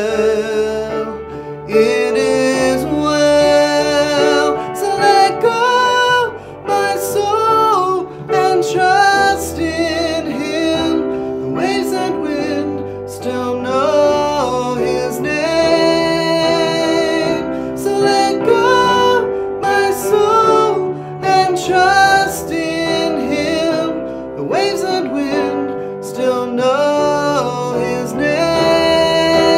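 A woman singing a slow worship song, accompanied on a Kurzweil PC88 electronic keyboard.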